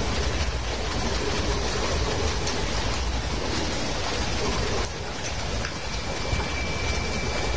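Motorised crab ride-on toy running with a steady, dense mechanical rattle. It dips briefly about five seconds in.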